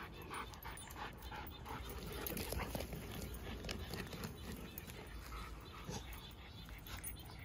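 A pug panting in quick, even breaths, about three a second.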